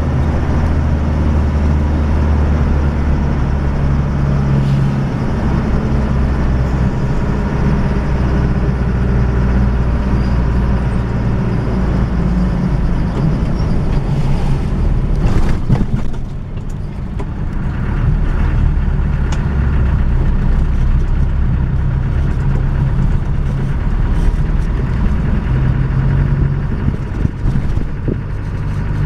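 Engine drone and road noise inside a moving vehicle's cabin, steady and low-pitched. About halfway through there are a few knocks, then the engine eases off briefly before picking up again.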